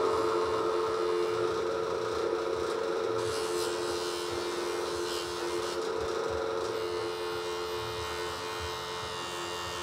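Electric bench grinder running a buffing wheel that polishes a steel knife blade, a steady motor whir, with green polishing compound rubbed onto the wheel partway through. Background music holds one steady chord over it.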